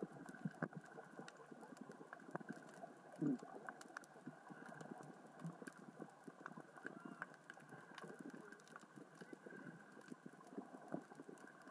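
Small rocks rolling across the sea floor in the current, heard underwater as a faint, irregular crackle of many small clicks, with one louder low knock about three seconds in.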